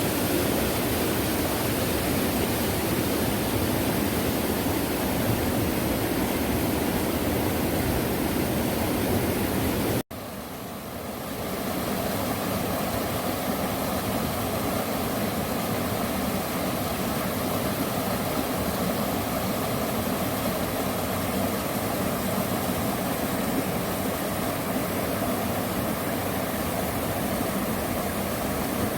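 Mountain stream rushing over rocks, a steady wash of water noise. It cuts out for an instant about ten seconds in and carries on slightly quieter.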